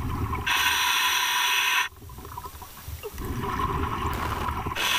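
A diver breathing through a scuba regulator in a full-face mask underwater: a loud hiss of air through the regulator lasting over a second, then a lower bubbling rush of exhaled air, and a second long hiss near the end.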